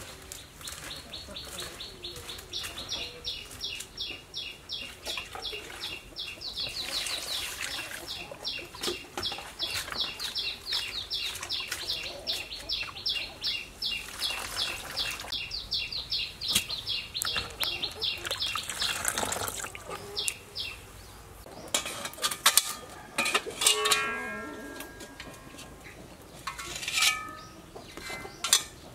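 A small bird chirping in a fast, even series of short high notes, about four or five a second, which stops about 21 seconds in. Under it, wet squelching and splashing of shredded bamboo shoots squeezed by hand in a bowl of water, and near the end a few knocks and clatters of cookware.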